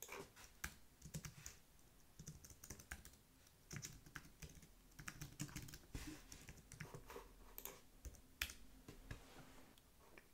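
Faint typing on a computer keyboard: irregular, quick keystrokes with short pauses between runs.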